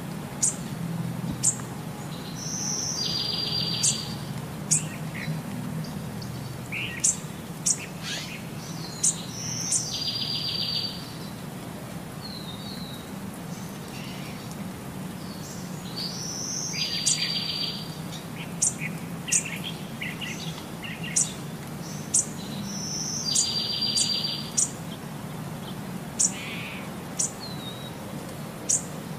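Small birds chirping, with the same short trilling song phrase returning about every seven seconds, over a steady low hum.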